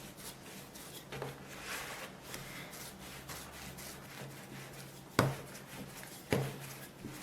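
Rolling pin rolling stiff dough out into a thin sheet on a floured board: a soft, continuous rubbing, with two sharp knocks about five and six seconds in.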